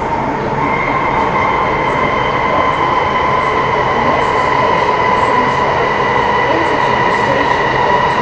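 Metro Cammell M-Train electric multiple unit running, heard from inside the car: a steady rumble of wheels on rail with a high whine from its GEC GTO chopper traction equipment. The whine sets in about half a second in and holds nearly level.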